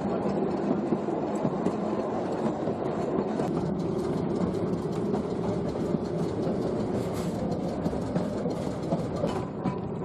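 A 1920s double saloon electric tram running along its track, heard on board: a steady hum over the noise of the wheels on the rails, with a constant patter of small clicks and rattles.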